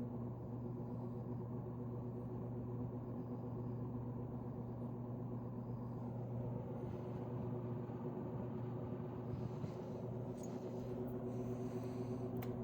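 1950s General Electric box fan running steadily: an even motor hum under the rush of air from the blades, with one sharp click near the end.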